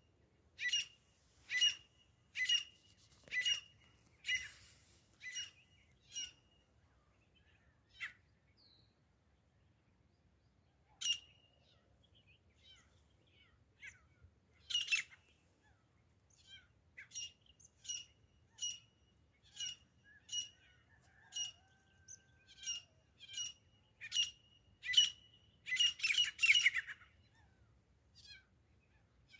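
Grey francolin calling: a run of sharp, ringing calls repeated about once a second, a lull with scattered calls, then a second run that speeds up into a rapid cluster near the end.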